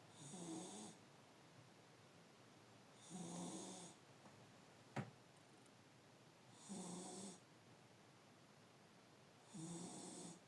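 A sleeping pet snoring quietly: four snores about three seconds apart, each lasting about a second. A single sharp click comes about halfway through.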